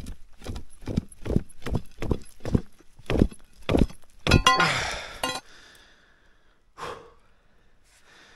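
Footsteps on hard, rocky ground, about two a second, then a brief rattling scrape about four seconds in, and one more single thud a couple of seconds later.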